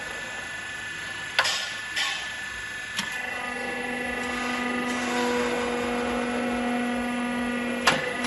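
Electric hydraulic rebar bender running with a steady whine and a few sharp clicks. About three seconds in a lower steady hum joins as the machine works through a bend, and it stops with a sharp clack near the end.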